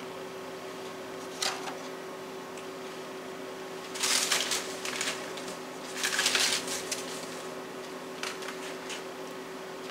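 Handling shredded cheese for the topping of a baking pan: two short bursts of rustling about four and six seconds in, with a few light clicks, over a steady hum.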